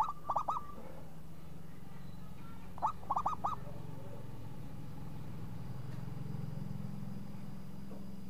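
Zebra dove (perkutut) cooing: a quick phrase of three notes at the start, then another of four notes about three seconds in. A steady low hum runs underneath.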